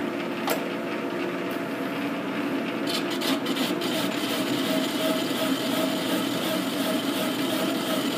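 Metal lathe running with a steel flange spinning in the chuck, a steady drone with a few held tones. From about three seconds in, a turning tool begins a facing cut on the steel, adding a scraping hiss over the drone.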